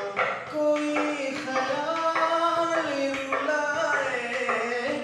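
A man singing a song, holding long notes that bend up and down between short breaths.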